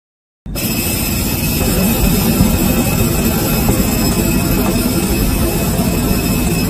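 Jet aircraft engines running on an airport apron: a loud, steady rush with a high, steady whine above it, starting suddenly about half a second in.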